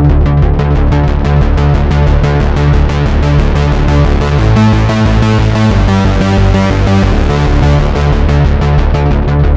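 Korg Mono/Poly analog synthesizer playing a fast, pulsing pattern of repeated notes over a deep bass line, which shifts to a new pitch about halfway through.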